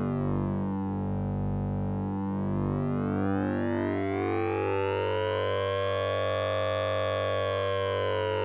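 Electronic drone from the Orange Vocoder plugin's synth, a sync and ring-modulation patch: a steady low hum under a dense set of bright, metallic overtones that sweep slowly. The overtones sink over the first couple of seconds, climb back up to a peak past the middle, and begin to fall again near the end.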